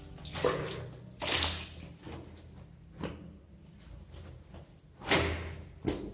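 Clothes hand-washed in a plastic basin of soapy water: wet cloth sloshing and squelching as it is scrubbed, lifted and wrung, in several separate splashes, the loudest about five seconds in.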